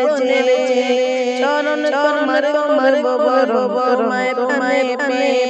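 A boy's solo voice singing a kasida, an Islamic devotional song, in a melismatic chanting style, over a steady held drone.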